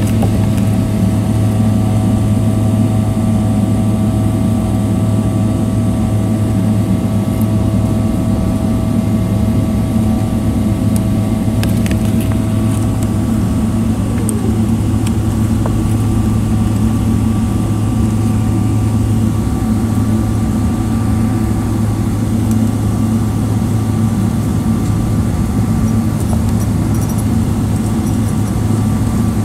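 Loud, steady engine and airflow noise in the cabin of a departing Boeing 777-300ER, its GE90-115B engines giving a low hum under a thin steady whine. About halfway through one of the engine tones slides down in pitch, just after a brief clatter.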